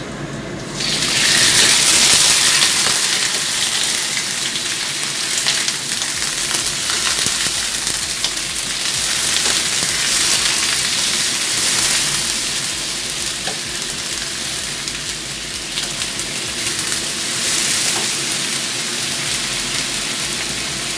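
Parboiled chicken pieces sizzling in hot vegetable oil with fried garlic and ginger: a loud crackling sizzle that jumps up about a second in as the chicken hits the pan, then goes on steadily with small pops.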